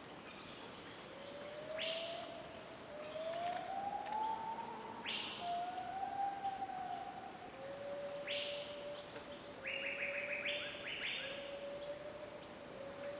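Forest animal calls: a series of long hooting notes that slide up and down in pitch, one after another, crossed by three loud, sharp, shrill calls and a quick stuttering run of notes, over a steady high insect buzz.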